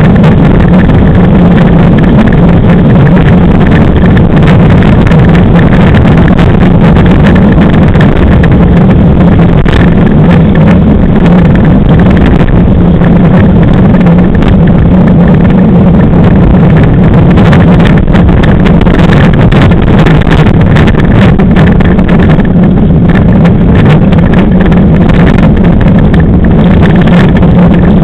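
Class 5 land yacht running at speed over a hard, rough lake bed: a loud, steady rush of wind on the microphone mixed with the rumble of the wheels, with many small clicks and rattles from the frame and the ground.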